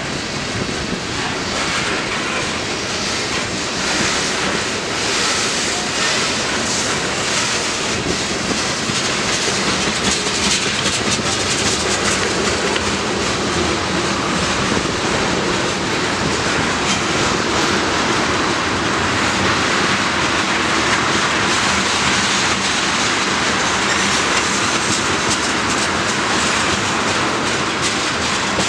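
Freight train cars rolling past close by: a steady, loud rush of steel wheels on the rails, with repeated clicks as the wheels cross the rail joints.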